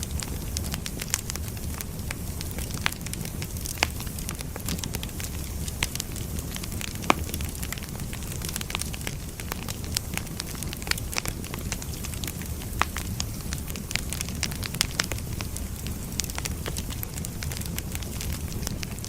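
Wood fire burning, with a steady low rumble and frequent irregular crackles and sharp pops from the firewood.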